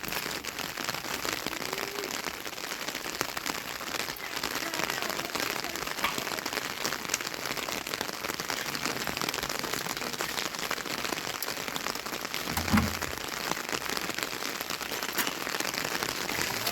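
Steady rain falling, an even hiss dotted with many small drop ticks. A single dull thump about three-quarters of the way through.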